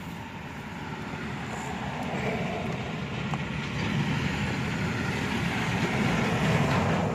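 Road traffic going by: a passing vehicle's noise building gradually, loudest near the end.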